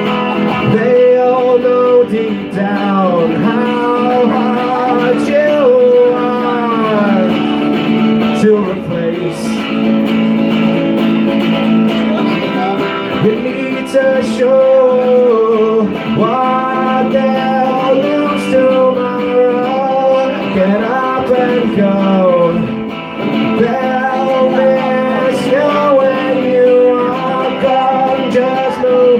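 Live song: a man singing while playing an amplified electric guitar, running steadily throughout.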